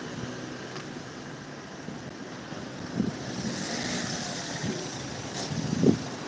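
Street traffic: a passing car whose noise swells and fades about halfway through, over the steady hum of the street. Low thumps come about three seconds in and, louder, near the end.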